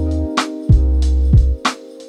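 Background music: a mellow track with held chords, a deep bass line and a steady drum beat, a sharp snare-like hit about every second and a bit.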